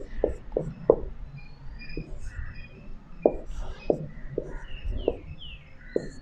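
Felt-tip whiteboard marker hatching quick strokes on a whiteboard, an irregular series of short taps about two a second with a pause in the middle. A few brief squeaks of the marker tip come near the end as letters are written.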